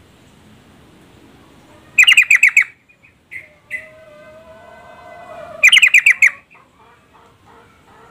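Female yellow-vented bulbul (trucuk) calling: two quick runs of about six sharp notes each, about two seconds in and again near six seconds, with softer short notes and a held lower tone between them. It is the female's call that draws males to answer and sing.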